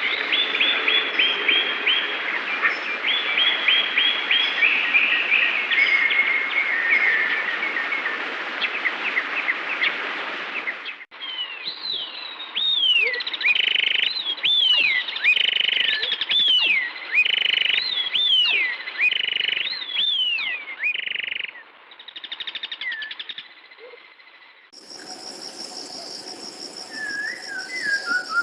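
A run of separate Hanna-Barbera stock bird sound effects played back to back. First comes dense chirping and tweeting over a steady hiss for about ten seconds. Then falling whistled calls alternate with short buzzy trills about once a second, and near the end a new clip brings high steady tones with a few chirps.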